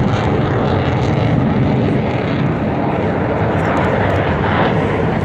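Steady rumble of military jets flying overhead.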